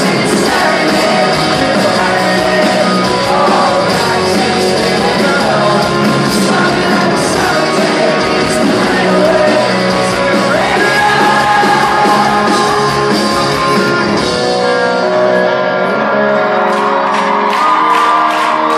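Pop-punk rock band playing live in a large hall, heard loud through a phone's microphone from the crowd: guitars, bass and drums with sung vocals. About fourteen seconds in the cymbals and low end fall away, leaving held chords.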